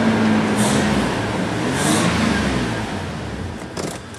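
1999 Toyota 4Runner's 3.4-litre V6 being brake-torqued, held in gear against the brakes under load. The engine note swells, holds for about two seconds, then eases off, with a brief click near the end. Under this load the engine is misfiring, though the scanner shows no misfire counts.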